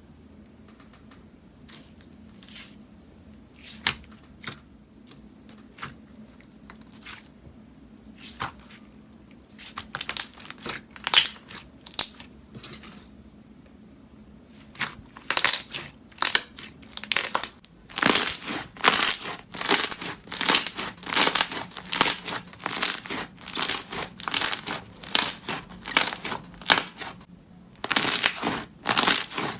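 Slime being pressed and squished by hand, giving a run of sharp crackling clicks. They are sparse at first, then come thick and loud through the second half.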